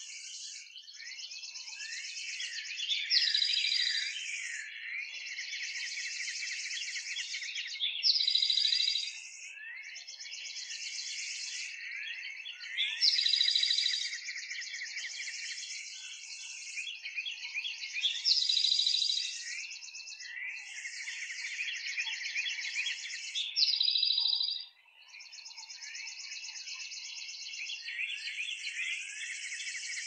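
Birdsong soundscape: many birds chirping and calling at once, with one louder song phrase coming back about every five seconds.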